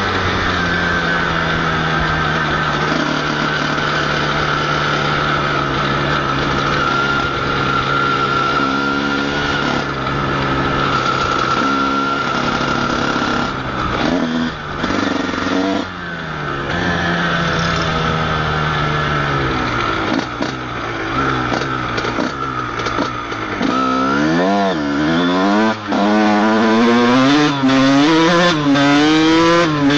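Honda CR125's 125 cc two-stroke single-cylinder engine running under way at a steady pitch, dipping a few times around the middle, then revved up and down repeatedly in the last third, louder near the end. The bike is ridden gently on a burnt clutch.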